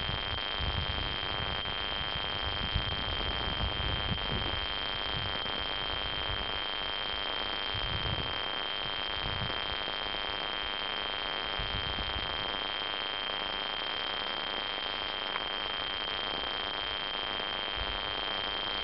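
Steady recording hiss with a constant high-pitched whine throughout, the self-noise of the recording. Low rumbling gusts of wind on the microphone come and go in the first few seconds and again about eight seconds in.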